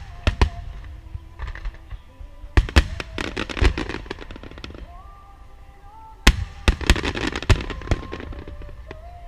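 Aerial fireworks shells bursting in rapid volleys of loud bangs with crackle, bunched near the start, around the middle and again a little past halfway. Music plays underneath as the show's accompaniment.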